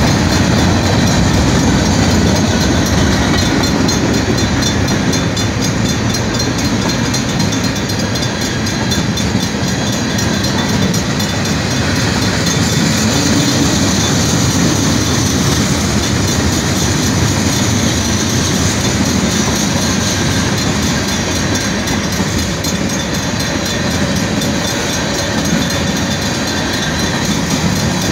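Norfolk Southern freight train rolling slowly past, a steady, unbroken rumble of the cars and their wheels on the rails.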